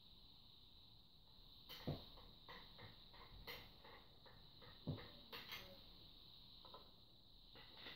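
Faint knocks and small clicks as the wooden sections of a turned beech walking cane are handled, joined and pulled apart, with two louder knocks about two and five seconds in.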